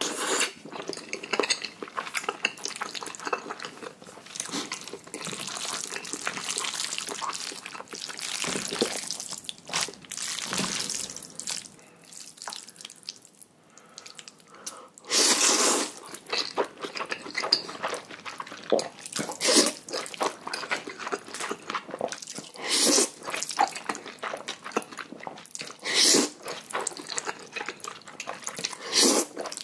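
A person slurping noodles close to the microphone and chewing, in a string of wet slurps. Longer slurps come about halfway through and twice near the end.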